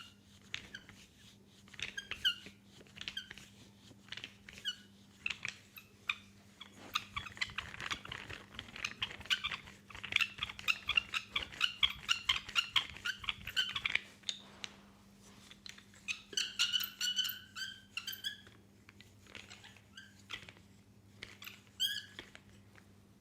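Hands rubbing and kneading an oiled leg, the slippery skin giving short rapid squeaks and small wet clicks. They come thickest in the middle, then in shorter clusters near the end. A faint steady electrical hum runs underneath.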